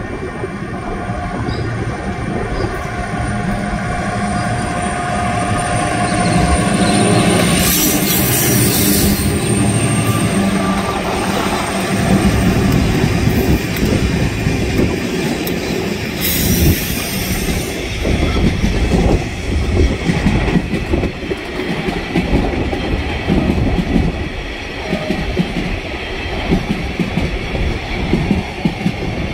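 TasRail diesel-electric freight locomotives (TR11 and TR08 leading, 2051 and 2054 behind) running past at a slow 30 km/h, their engines humming steadily, with two short bursts of hiss about eight and sixteen seconds in. After the locomotives, empty coal hopper wagons roll by with a steady clickety-clack of wheels over the rail joints.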